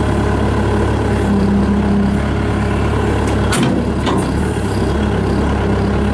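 Bobcat S300 skid steer loader's Kubota diesel engine running steadily, with a short sharp knock about three and a half seconds in and a fainter one just after.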